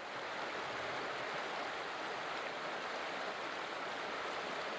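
Flowing river water: a steady, even rush of current.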